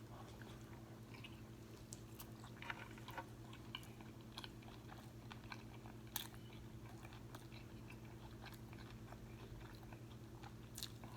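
Faint, close-miked chewing of a crispy fried flounder fish sandwich: soft, scattered crunches and clicks, thinning out after about seven seconds.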